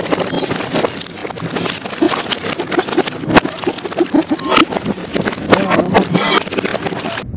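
Fishing boat hauling a net at sea: steady rush of engine and water, with knocks, splashing and a few short calls in the middle.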